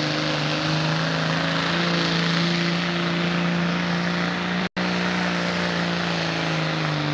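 Turbocharged diesel engine of a Pro Stock pulling tractor running flat out under full load as it drags the weight sled: a steady, high engine note, with the sound cutting out for an instant about two-thirds of the way in.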